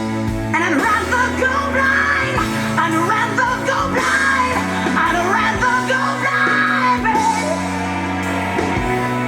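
A song playing, with held bass notes and a high, bending melodic line between about half a second in and seven seconds, either a wordless vocal run or a lead instrument.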